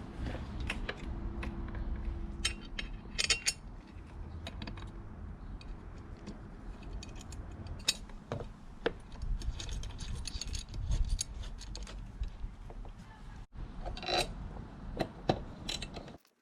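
Hand work on the wiring and tail of a motorcycle: scattered clicks, small rattles and ratcheting, like cable ties being zipped tight and parts handled, over a steady low rumble. The sound cuts out for a moment about 13 seconds in.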